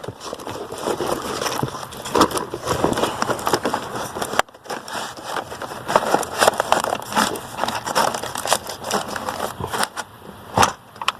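Irregular rustling with scattered clicks and small knocks of objects being handled and moved about.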